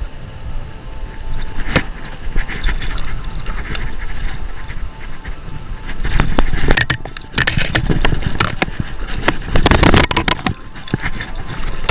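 Metal pliers clicking and rattling against the treble hooks of a plastic needlefish lure while a bluefish is unhooked by hand. It comes as a run of sharp knocks and clatters, with a dense burst about six seconds in and another, with water splashing, about ten seconds in, as the fish is lowered into the water. A steady low rumble lies underneath.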